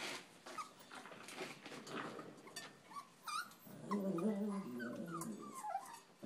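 Cavachon puppies play-wrestling: scuffling and short high yips and whimpers, then a stretch of low play growling in the second half.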